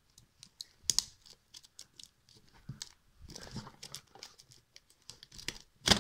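Cardboard speed-cube box and its paper sleeve being handled and worked apart: scattered scrapes, crinkles and sharp clicks, with a louder crackle just before the end.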